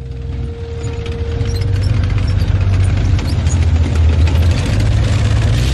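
Tracked amphibious armoured personnel carrier (BTR-50, NVA SPW-50PK) running through water: a steady heavy low engine rumble that grows louder over the first two seconds and then holds, with a thin steady whine during the first two seconds.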